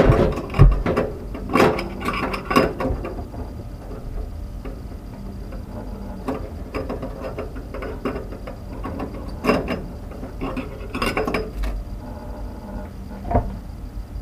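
Irregular clicks, clinks and knocks of metal camping cookware being handled, coming in clusters with short pauses between.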